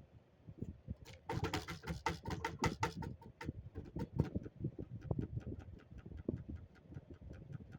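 Old, heavily rusted ceiling fan running at high speed: a low pulsing hum with a rapid, even ticking of about four to five clicks a second, starting about a second in.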